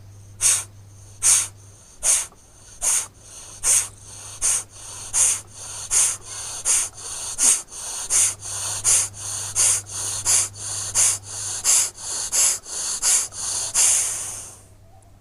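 Kapalbhati breathing through the left nostril: short, forceful exhalations pushed out through the nose in a steady rhythm. The strokes speed up from under one a second to about two a second, and the last one is a little longer.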